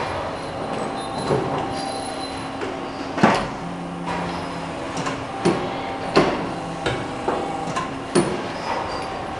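Small high-speed hydraulic press working in production, with a steady machine hum and several sharp metallic clanks from the press strokes and the metal parts being loaded and removed. The loudest clank comes about a third of the way in.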